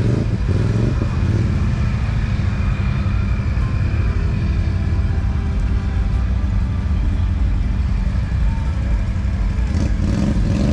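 Off-road vehicle engine running steadily at a constant speed, a low even rumble, with fainter engines further off.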